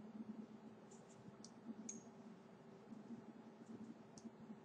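Several faint computer mouse clicks, spread irregularly, over a low steady electrical hum.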